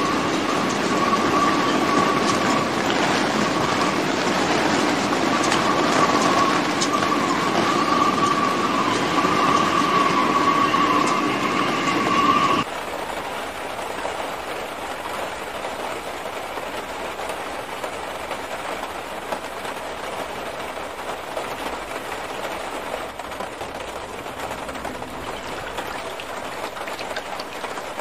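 Fast-flowing floodwater and heavy rain making a loud, steady roar. A steady high tone runs through the first part. About twelve seconds in, it cuts to a quieter, even rush of water.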